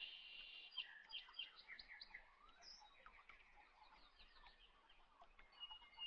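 Faint birdsong: small birds chirping, with quick trills of repeated high notes.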